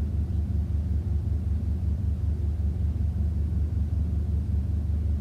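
Steady low rumble of room background noise with no distinct events.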